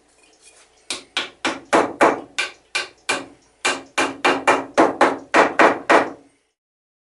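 Pine block knocking against a glued biscuit joint in a wooden frame to drive it closed: about eighteen quick, sharp wooden knocks, some four a second.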